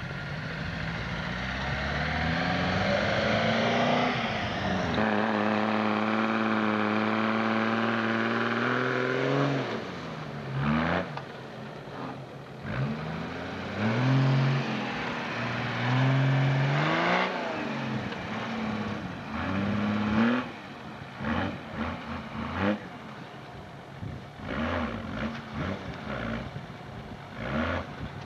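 Off-road 4x4's engine revving hard: the revs climb over the first few seconds and hold high for several seconds. Then comes a series of rising and falling rev blips as the throttle is worked, growing choppier and quieter toward the end.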